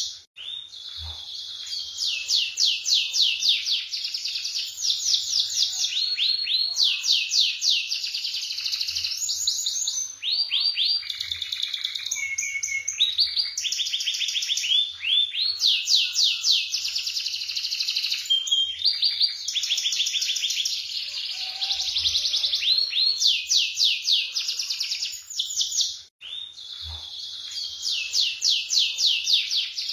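Domestic canary singing a long song of fast rolling trills, each phrase a rapid run of repeated rising notes, with a few short breaks between phrases.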